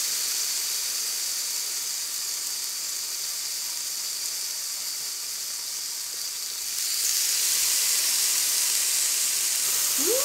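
Marinated beef short ribs (galbi) sizzling on a hot grill pan, a steady high hiss. The sizzle gets louder about seven seconds in as more slices are laid on the grill.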